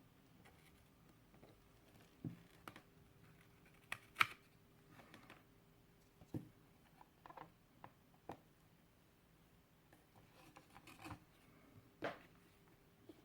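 Faint, scattered clicks and taps of small tools handled against a circuit board while a replacement potentiometer is soldered in, over a faint steady hum.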